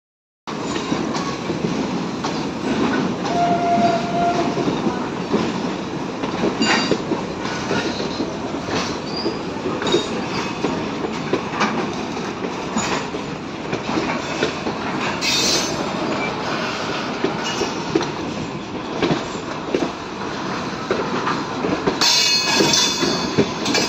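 Passenger train running on the rails, heard beside the coaches: a steady rumble with frequent rail-joint clicks and some wheel squeal. High-pitched squealing near the end.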